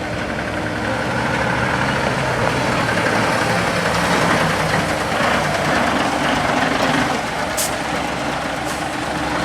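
A motor vehicle's engine running steadily, a low hum under a constant rush of noise.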